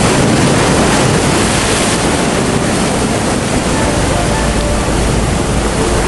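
Steady loud rushing of floodwater pouring down a flooded street.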